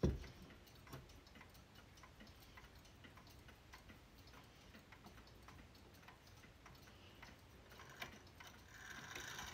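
Antique schoolhouse wall clock ticking. A single knock comes at the very start, as the clock's bezel is handled.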